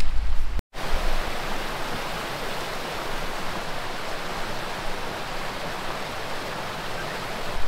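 Fast-running upland burn rushing over rocks in white-water rapids, a steady hiss of water swollen by recent heavy rain. It opens with a short low rumble of wind on the microphone that cuts off abruptly.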